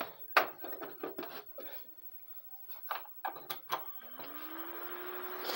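Several sharp clicks and knocks, the loudest just after the start. About four seconds in, the desktop PC powers on and its CPU cooler and power-supply fans spin up: a rising hum that settles into a steady whir.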